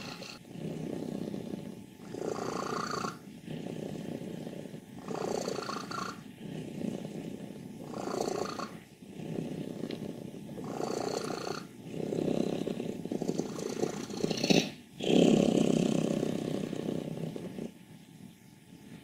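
A 14-year-old domestic cat's loud, rattling purr, swelling and fading with each breath about every three seconds, loudest near the end. Her vet has found her healthy, so the rattle is not a sign of illness.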